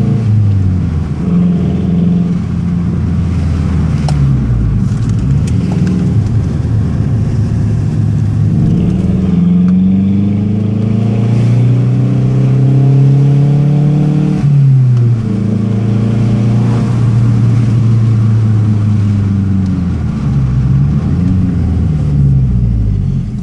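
2013 Mazdaspeed3's turbocharged 2.3-litre four-cylinder heard from inside the cabin through a muffler-deleted exhaust cut to a side exit, pulling through the revs while driving. The engine note climbs steadily to around 4,000 rpm, falls away suddenly about fourteen seconds in, then holds and rises and falls again.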